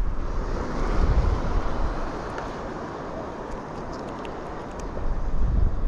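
Wind rumbling on the microphone over a rushing wash of sea surf, swelling about a second in and easing off, with gusts again near the end.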